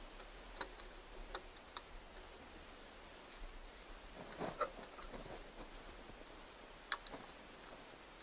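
Small sharp metallic clicks and taps of a screwdriver working at a screw in a marine engine's distributor breaker plate: a few in the first two seconds, a cluster about four and a half seconds in, and a couple more near the end.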